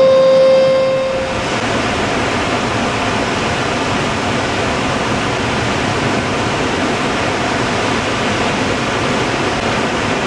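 Water discharging through a concrete dam's open spillway gates: a loud, steady rush. A steady siren note cuts off about a second in.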